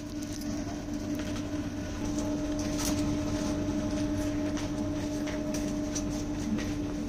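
Small electric blower fan at the base of a steel wood-burning stove running with a steady hum, forcing air into the fire, with scattered light clicks over it.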